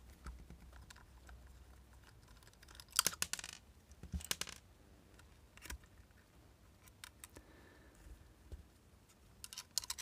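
Scattered light clicks and taps of a precision screwdriver, small screws and a plastic aircraft downlight housing being handled while the screws are taken out, with the loudest cluster of clicks about three seconds in.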